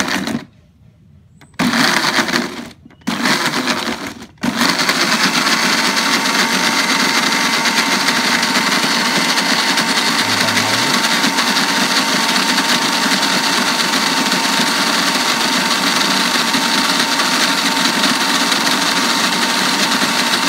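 Small electric blender motor blending whole bilimbi fruit into juice: switched on in a few short pulses with brief pauses between them, then running steadily from about four seconds in.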